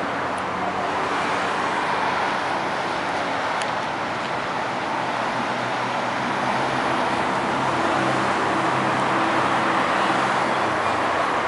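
Steady outdoor vehicle noise: a low, even engine hum under a wash of traffic noise.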